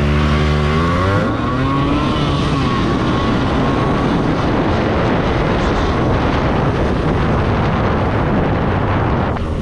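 Motorcycle riding at speed, the wind rushing over the microphone and the engine running underneath. For about the first second a clear pitched engine note is heard falling in pitch before the wind noise takes over.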